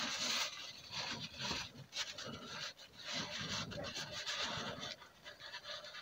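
A rag rubbed by hand against the transfer case output seal and propeller shaft yoke, wiping off leftover assembly grease: faint, irregular rubbing and scratching.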